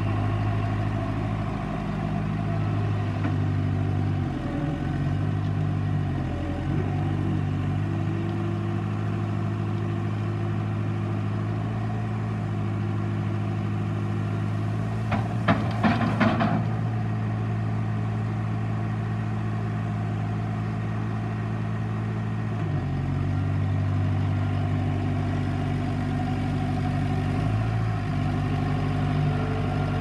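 Case 580SM backhoe loader's four-cylinder diesel engine running, its speed stepping up and down several times. About halfway through there is a short clatter of gravel tipped out of the front loader bucket.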